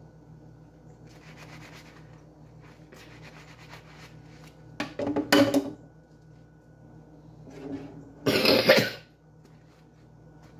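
Soapy sponge scrubbing a kitchen utensil faintly, broken by two loud short coughs about five and eight and a half seconds in.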